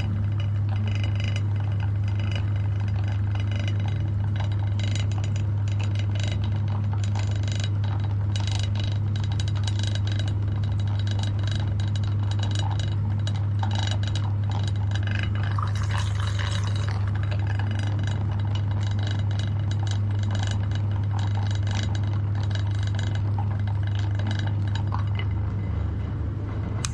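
Electric meat grinder running with a steady motor hum, with rapid clicking and clinking as chocolate bars are forced through the grinder. The motor dies away near the end.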